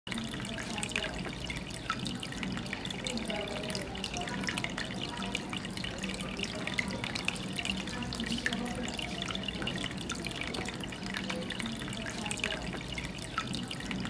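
Small tabletop cement waterfall fountain running: water trickling from its spouts and splashing into the basins below, with many small drips and plinks over a steady trickle.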